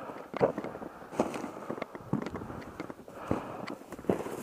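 Boots crunching through snow and dry, snow-laden brush. The steps come irregularly, about every half second to a second, with the stems rustling in between.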